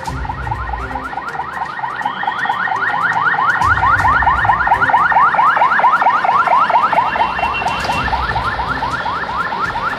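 Ambulance siren in a fast yelp, a quick rising whoop repeated several times a second. It grows louder toward the middle and then eases a little, with a low vehicle rumble beneath.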